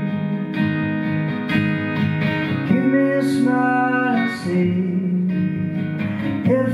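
Steel-string acoustic guitar strummed steadily, with a man singing over it, heard live through a PA.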